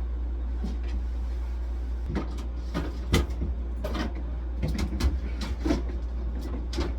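Scattered knocks and clatter of things being handled and set down, coming from about two seconds in, over a steady low hum.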